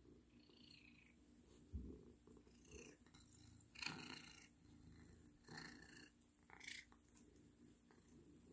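Domestic cat purring faintly while its face and chin are scratched, with a few short rustles as the fingers rub through its fur.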